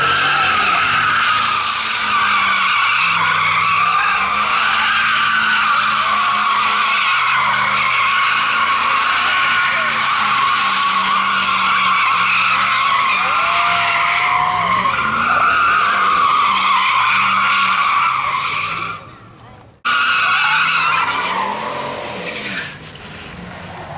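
Car tires squealing continuously as a car spins donuts, with the engine running at high revs and its pitch stepping up and down underneath. The sound cuts out abruptly near twenty seconds, comes back briefly and then fades.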